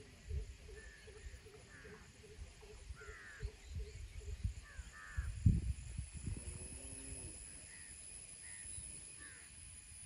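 Crows cawing, several short calls scattered through, over a steady high-pitched whine and low rumbling bumps.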